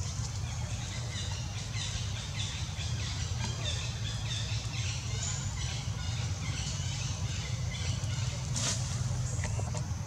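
Small birds chirping repeatedly in short, separate calls over a steady low rumble, with one brief sharp noise about eight and a half seconds in.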